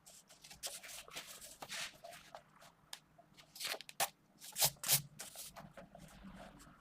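Mechanical pencil with 0.5 mm 2B lead sketching on paper: irregular quick, scratchy strokes, with two louder strokes a little past the middle.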